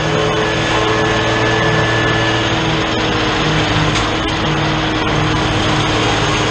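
New Holland TN70 diesel tractor running steadily under load, driving a SaMASZ drum mower whose spinning drums are cutting standing hay.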